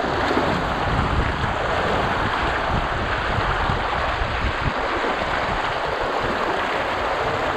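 Steady rushing of a small mountain stream, an even hiss, with some low wind rumble on the microphone.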